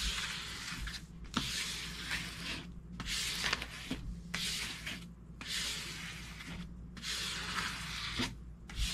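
Plastic scraper swept again and again over the paper liner of a diamond painting canvas to flatten it: a dry scraping stroke about once a second, with a faint low hum underneath.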